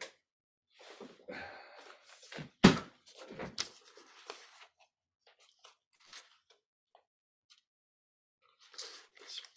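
Soft scattered rustling noises at a video-call microphone, with one sharp knock about two and a half seconds in.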